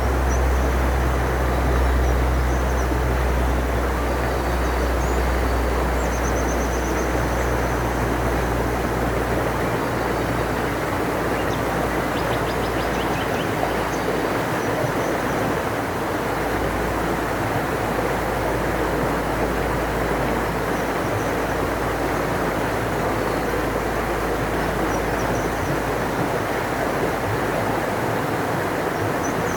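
Large river rushing steadily, with a low rumble beneath that eases about ten seconds in. Faint bird chirps come now and then.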